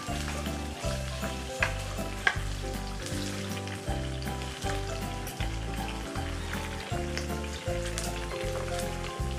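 Chicken wings frying in hot oil in a pan: a steady sizzle with small crackles and two sharper pops, about a second and a half and two seconds in. Background music with a low bass line plays underneath.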